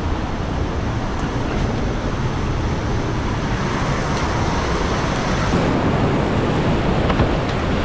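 Steady rush of whitewater river rapids, growing louder about two-thirds of the way through.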